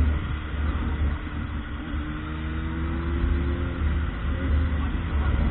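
Motor vehicle running on the road with a heavy low rumble; an engine note climbs gently in the middle as it speeds up.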